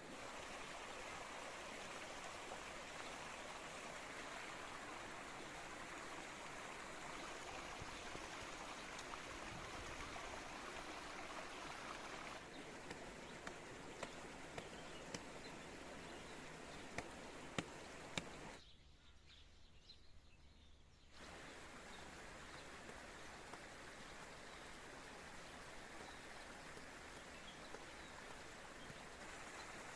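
Spring water flowing in a stream, a faint, steady rush of water, with a few light clicks past the middle. The sound changes abruptly about twelve seconds in and drops away for a couple of seconds a little later.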